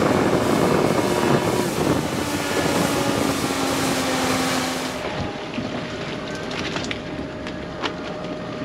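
Small fishing boat's outboard motor running at speed, with water rushing past the hull and wind on the microphone. About five seconds in, the rushing falls away and the engine runs on lower and quieter as the boat slows. A couple of sharp knocks come near the end.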